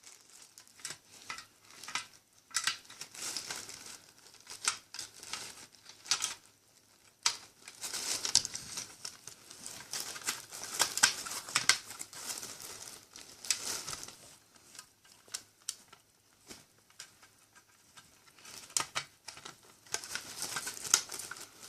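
Hard plastic parts of an Xbox 360 console being handled and fitted back together: irregular clicks and knocks with rustling scrapes, busiest in the middle and near the end.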